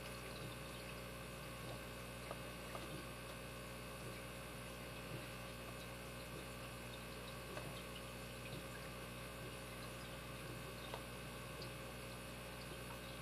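Steady electrical mains hum, with faint small clicks and taps scattered through it from a tool working at the plastic housing and spring-loaded core retainer clip of a lockout padlock.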